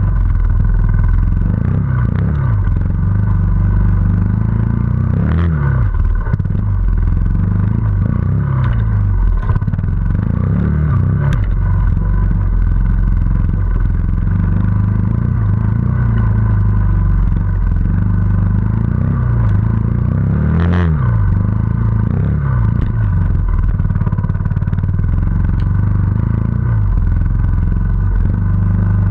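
Trials motorcycle engine heard from on board, revved up and down again and again as the bike climbs a rocky trail. A few sharp knocks and clatters mix in along the way.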